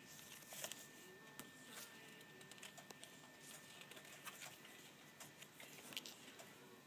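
Faint rustling and soft scattered ticks as sheer drapery fabric swatches in a sample book are turned and smoothed by hand, over a faint steady high-pitched tone.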